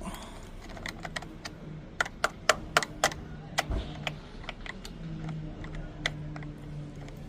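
Sharp clicks and taps of hand tools on a motorcycle's seat lock assembly, with a quick run of five louder taps about two seconds in and scattered lighter clicks around it.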